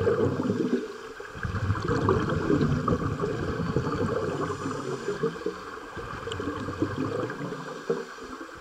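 Scuba exhalation bubbles bubbling and gurgling from a regulator exhaust, heard underwater: long bursts of bubbles with short lulls between breaths.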